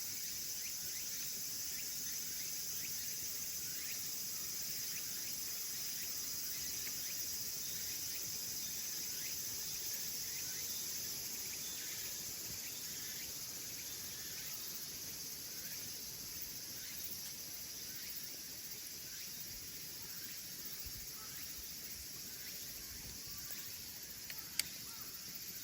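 A steady high chorus of insects, cricket-like, with small, scattered crackles of firewood burning in a wood stove, and one sharper pop near the end.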